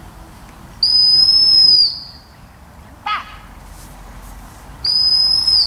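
Gundog whistle blown in two long, steady, high blasts, about four seconds apart. Between them comes a single short chirp that drops quickly in pitch.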